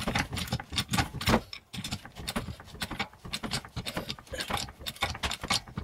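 Small low-profile hydraulic floor jack being pumped by its handle, raising the car by its lower control arm: a run of quick metallic clicks and rattles.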